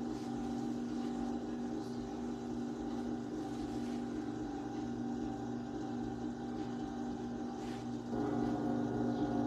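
Electric potter's wheel running with a steady motor hum as wet clay is shaped on it, growing a little louder about eight seconds in.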